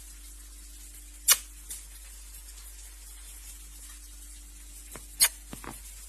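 Two loud, short kissing smacks, about a second in and about five seconds in, each followed by one or two fainter smacks, over a faint steady hum.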